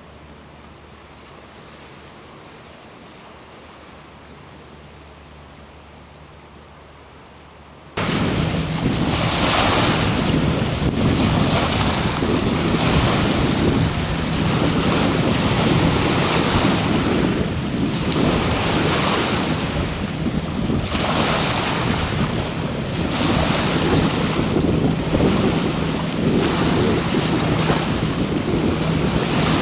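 A faint steady hiss, then about eight seconds in an abrupt cut to loud wind buffeting the microphone over waves washing onto the shore, surging and easing in gusts.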